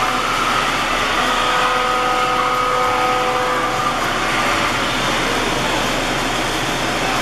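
Steady loud rushing din of an ice arena, with a few faint held tones from about one to three and a half seconds in.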